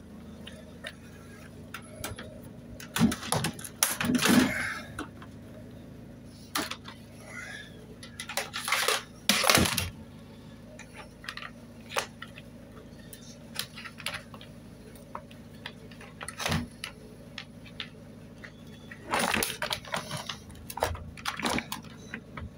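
Wire cutters snipping through the flex of scrap small appliances, among scattered clicks, scrapes and light metallic clinks, over a steady low hum.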